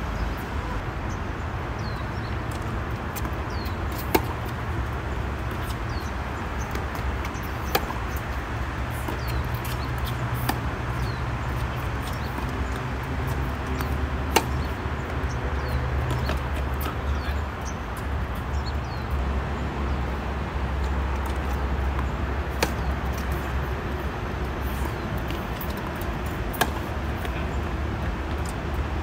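Tennis balls struck by rackets during rallies: about six sharp pops, spaced a few seconds apart, over a steady low background rumble.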